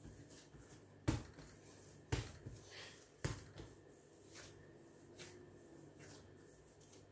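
Bread dough being kneaded by hand on a granite countertop: three dull thumps about a second apart as the dough is pushed down against the counter, then softer knocks and rubbing.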